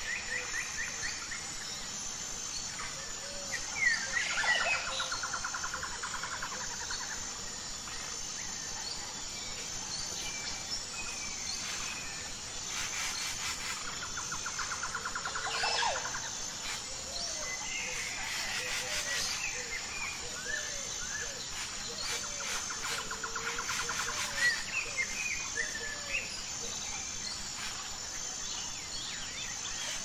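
Outdoor birdsong: a trilled song of quickly repeated notes, about three seconds long, comes three times, with scattered short chirps and whistles from other birds between. A steady high-pitched pulsing runs underneath.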